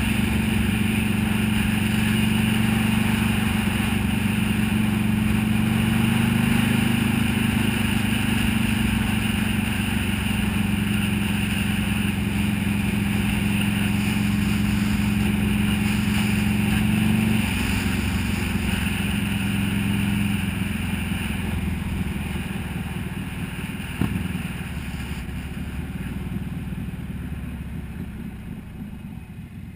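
Buell XB12S's air-cooled V-twin engine running steadily at cruising speed, with wind rush over the microphone. About halfway through, the engine note drops as the throttle is eased off, and the sound fades as the motorcycle slows, with a single knock a little later.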